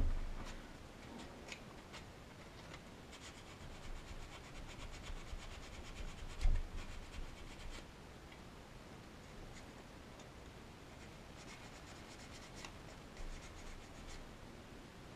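Faint rubbing and scratching as hands handle clamped model parts on a workbench. A soft knock comes at the start and another about six and a half seconds in, with scattered light clicks between.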